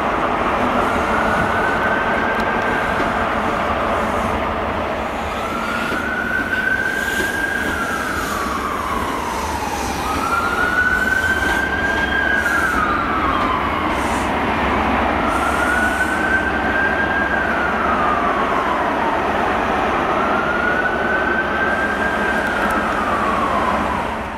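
An emergency-vehicle siren wailing, its pitch rising, holding and falling in five even cycles about every four to five seconds, over the steady running noise of a GWR High Speed Train with Class 43 power cars moving through the station.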